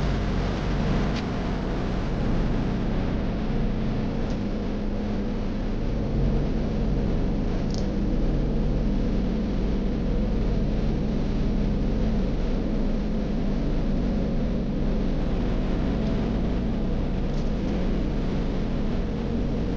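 Steady road and engine noise inside a moving car's cabin, with a strong low hum.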